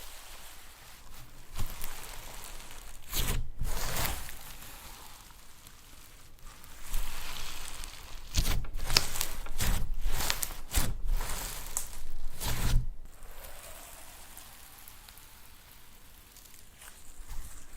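Slime being squished and stretched by hand: irregular sticky crackling and rustling strokes that come in bunches, with quieter stretches between.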